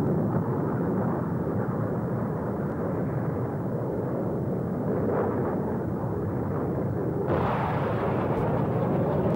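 Steady jet-aircraft engine noise, with a bomb explosion about seven seconds in, after which the noise is brighter and fuller.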